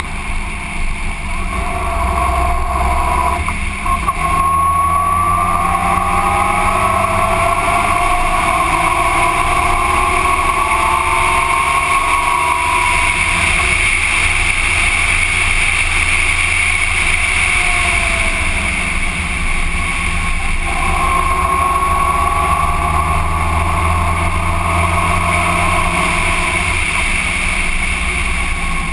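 Motorcycle underway at cruising speed, its engine running under a steady rush of wind and road noise. The engine pitch rises and eases off slowly a few times as the bike accelerates out of curves and backs off into them.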